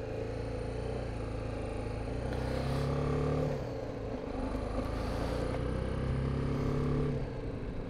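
BMW G 310 GS motorcycle's single-cylinder engine running on the move; the engine note gets louder twice, about two and a half seconds in and again from about four and a half seconds, easing off near the end.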